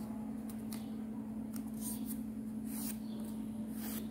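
A small square of origami paper rustling and crinkling as it is folded in half along the diagonal and the crease is pressed down, in several short crisp swishes, over a steady low hum.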